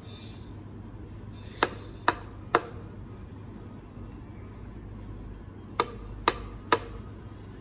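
Two sets of three sharp clicks, each about half a second apart, over a steady low hum from a running mini LED spider moving-head light.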